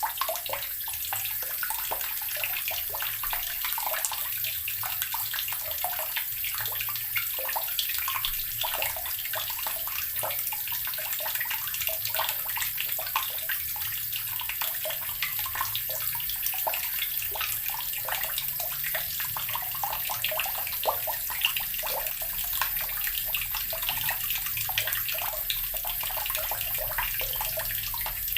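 Water running steadily from a tap and splashing below, a constant hiss made up of many small splashes.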